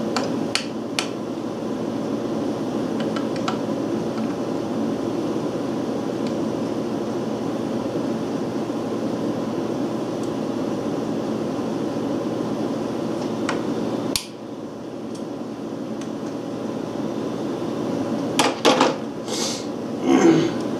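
A steady mechanical hum, dropping sharply about two-thirds of the way through and then building back, with a few light metallic clicks of a screwdriver on the breaker-points plate as the points are tightened down. Near the end come a few louder handling knocks of tools and parts.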